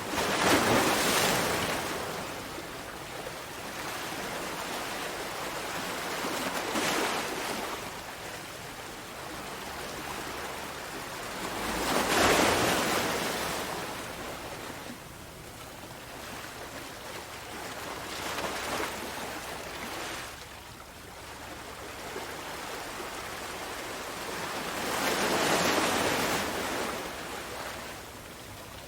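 Ocean waves breaking and washing up, rising and falling about every six seconds. The biggest swells come about a second in, about twelve seconds in, and near the end.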